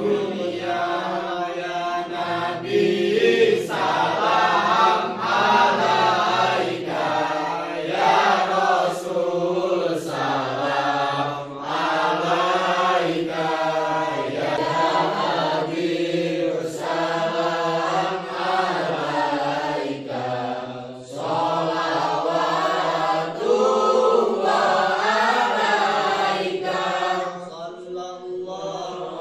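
A group of voices chanting together in unison, a devotional chant in long phrases with wavering pitch and short pauses for breath between phrases.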